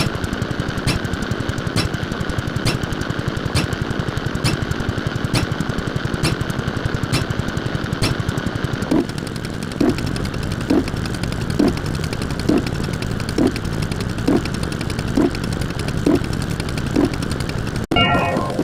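A fast, continuous mechanical rattle with a sharp tick about once a second, turning to a low blip about once a second about halfway through; it cuts off near the end and gives way to a short electronic tone pattern.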